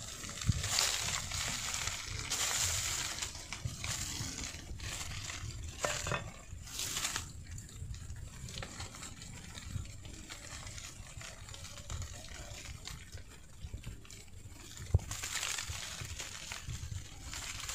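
Irregular scraping, crunching and rustling as dry soil, leaf litter and grass are dug and pulled away by hand and with a small tool from around a sapling's roots, with louder scrapes now and then.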